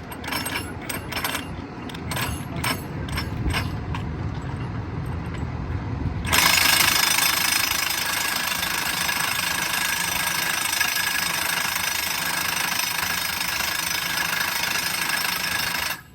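Track-maintenance work on a railroad diamond crossing: a machine engine runs under repeated metallic knocks and clanks, then about six seconds in a loud, steady power-tool noise starts abruptly and runs until it cuts off suddenly near the end.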